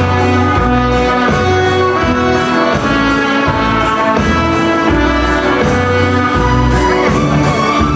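Background music: an orchestral track with sustained brass and string notes over a steady bass beat.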